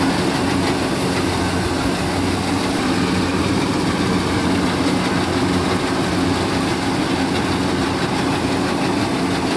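Kubota DC-70 Plus rice combine harvester running close up while harvesting: its diesel engine and threshing machinery make a steady, loud mechanical drone.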